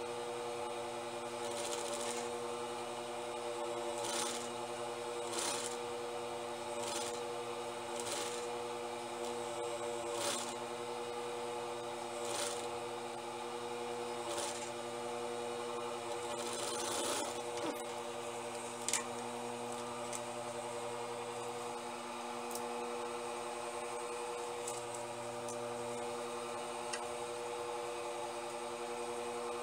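Steady hum of a Jontex JT-8500 industrial sewing machine's motor, with short rustles and scrapes of fabric being handled every second or two, and a sharp click about two-thirds of the way through.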